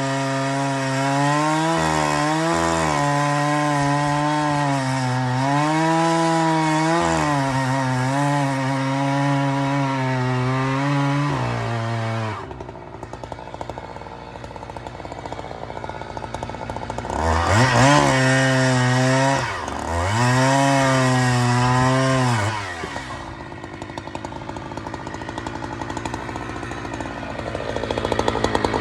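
Husqvarna 365 SP two-stroke chainsaw running at high revs for about twelve seconds, then dropping suddenly to idle. It is revved hard twice more, then idles, and picks up again near the end.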